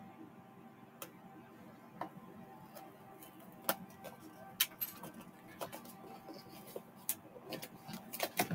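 Scissors cutting the packing tape on a cardboard shipping box: scattered light clicks and snips at irregular intervals, coming thicker near the end.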